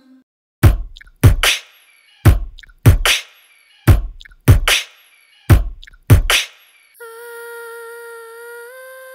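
A woman's vocal beatboxing: about a dozen sharp mouth-drum hits in a slow, grouped pattern, with silence between them. From about seven seconds in, a hummed held note takes over and steps up in pitch near the end.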